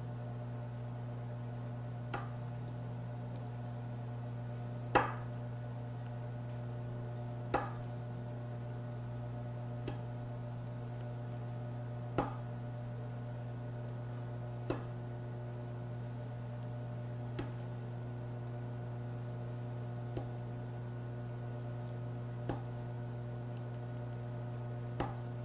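A knife slices down through a frozen log of cookie dough rolled in sprinkles. Each cut ends in a sharp tap of the blade on the board, about every two and a half seconds, ten cuts in all. A steady low hum runs underneath.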